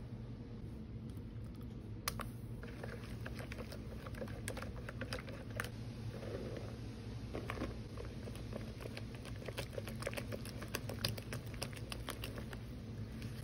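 A silicone spatula clicking and scraping against a glass mixing bowl while stirring a dough of egg, yeast mixture and flour: many small, light ticks over a steady low hum. There is a brief soft rush about six seconds in as flour is poured into the bowl.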